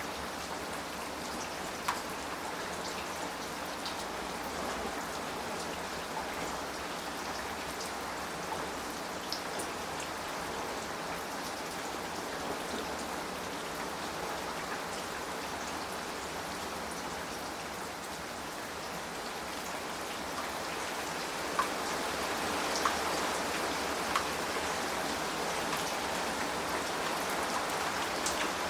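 Rain falling steadily on a traditional Korean hanok's clay-tile (giwa) roof: an even hiss of rain with scattered sharp drips and taps. A few single drops stand out louder, one about two seconds in and several more past the middle, where the rain grows slightly heavier.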